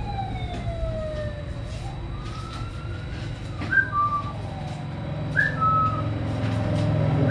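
Miniature Pinscher puppy whining while it is held: one long whine that falls and then rises, followed by three short two-note whimpers, each stepping down in pitch. A steady low hum runs underneath.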